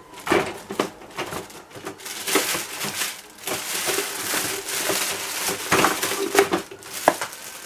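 Sticky packing tape being pulled off and packaging handled: stretches of ripping and rustling with several short knocks.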